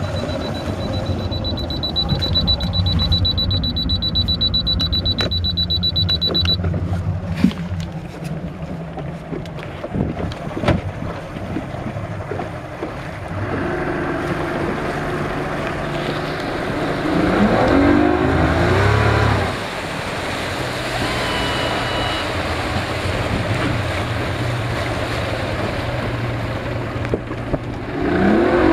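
Freshly rebuilt Mercury 135 hp V6 two-stroke outboard motor running in, first at low speed, then speeding up with a rising pitch about seventeen seconds in and again near the end. A steady high-pitched tone sounds for several seconds near the start.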